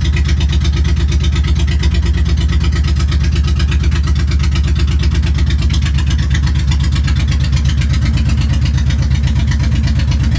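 Honda VTX 1800's big V-twin engine idling steadily through Vance & Hines Big Shots exhaust pipes, a loud, deep, even pulse with no revving.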